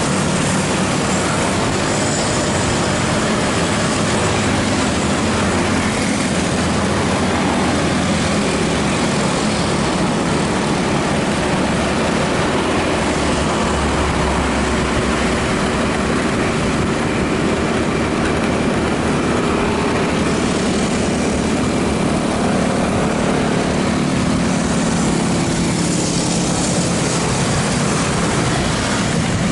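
Motorcycle riding in traffic: a steady engine hum under continuous wind rushing over the microphone, with the engine note shifting a little as the speed changes.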